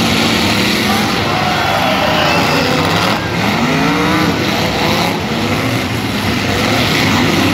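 Many car engines in a full-size demolition derby revving and running together, a loud steady din of overlapping engine notes rising and falling as the drivers accelerate and back off.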